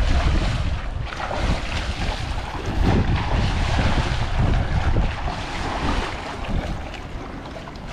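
Wind rumbling on the microphone over water sloshing and splashing, easing off in the last second or two.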